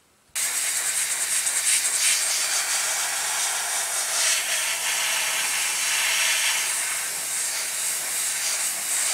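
An airbrush spraying paint: a steady hiss of compressed air that starts suddenly just under half a second in.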